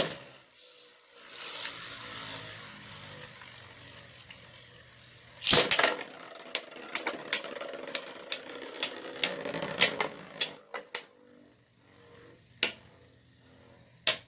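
Beyblade battle with 3D-printed spinning tops: a sharp launch at the start, then the tops whirring and scraping around the plastic stadium. A loud clash comes about five and a half seconds in, followed by a rapid run of sharp clacks as they hit each other and the wall, dying out after about eleven seconds, then a few isolated clicks.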